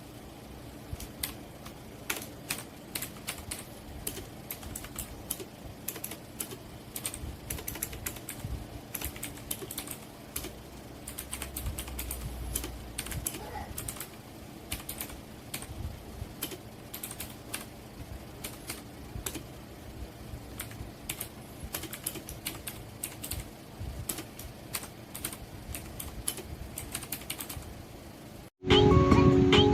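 Typing on a Rapoo V500 Pro mechanical keyboard with clicky blue switches: a fast, irregular run of sharp key clicks. Near the end it cuts off abruptly and loud music begins.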